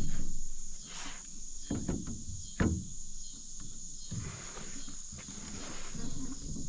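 Insects chirring steadily in one high pitch, with a few short knocks of gear being handled in the boat, the sharpest a little over two and a half seconds in.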